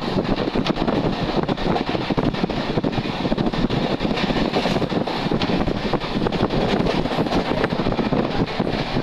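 A moving passenger train heard from an open window: steady rushing wind buffeting the microphone over the train's running noise.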